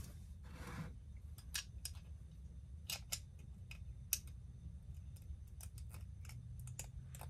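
Small sharp clicks at irregular intervals, a dozen or more, from small tools and parts being handled at a workbench, after a brief rustle near the start; a low steady hum sits underneath.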